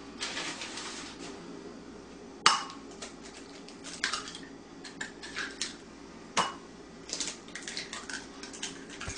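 Eggs being cracked into a glass bowl: three sharp clinks of shell on glass, spaced a second or two apart, two of them setting the bowl ringing briefly. Smaller crackles and taps come in between.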